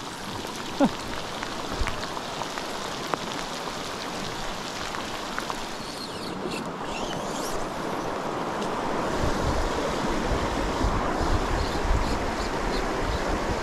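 Heavy rain falling with flowing river water, a steady hiss. From about nine seconds in, wind buffets the microphone with a low rumble.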